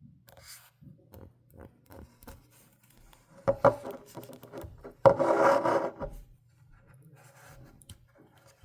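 Close-miked ASMR handling sounds: light taps and rubs, then a louder burst about three and a half seconds in and a longer one of about a second from five seconds in.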